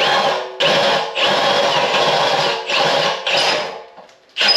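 Cordless drill boring into the stainless steel wall of a beer keg to widen a hole. It runs in about five bursts, each from a few tenths of a second to about a second and a half long, and the motor's whine dips and rises as the trigger is worked. It stops near the end and starts again just before the end.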